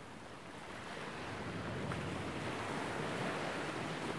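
Sea surf washing on the shore: a steady rushing that swells about a second in, with some wind mixed in.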